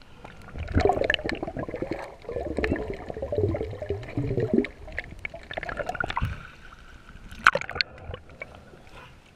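Water sloshing and gurgling around a camera as it dips below the surface, muffled by the camera housing. An irregular churning for the first few seconds gives way to quieter water noise with scattered sharp clicks and crackles.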